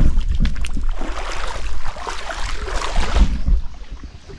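Footsteps splashing through a shallow rocky creek, with a low rumble of wind or handling on the microphone; the noise falls away near the end.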